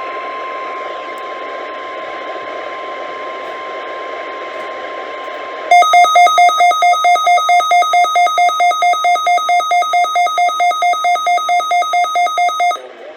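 NOAA Weather Radio alert received on a Midland WR120 weather radio: the steady 1050 Hz warning alarm tone over light static for about six seconds, then a louder two-pitch beeping from the radio about four times a second for about seven seconds. The alarm tone and beeping announce an incoming warning.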